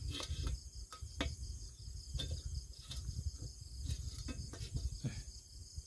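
Crickets chirring in a steady high drone, with a low rumble underneath and scattered sharp clicks.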